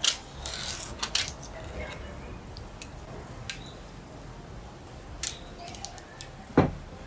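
Hard plastic computer parts and packaging being handled and opened: scattered sharp clicks and short rustles, with one heavier knock near the end.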